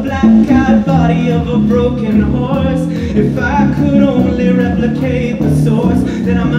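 Live band playing a song: a male voice singing over keyboard and drums with a steady beat.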